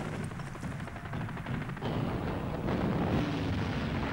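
Battle sounds: rapid gunfire crackling over a continuous low rumble of explosions, getting louder a little under three seconds in.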